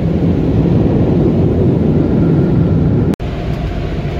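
Car wash air dryer blowers running, a loud, steady, low rush heard from inside the truck's cab. It breaks off for an instant about three seconds in and then carries on a little quieter.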